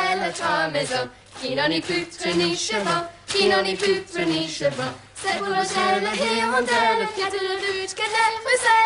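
A small group singing a song together, with women's voices leading, in phrases of held notes broken by short pauses.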